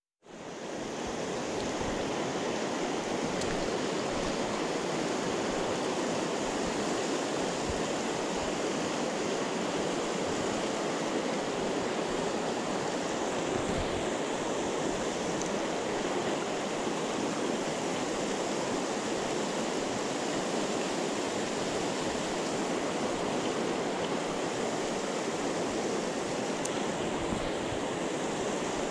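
Shallow rocky river rushing through whitewater rapids, a steady, unbroken rush of water that comes in suddenly at the very start.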